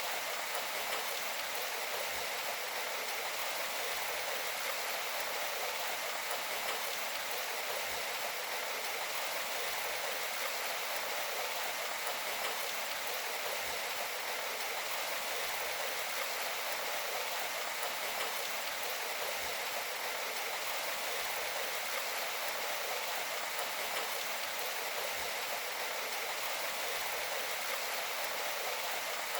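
Steady rain: an even, unbroken hiss of falling water.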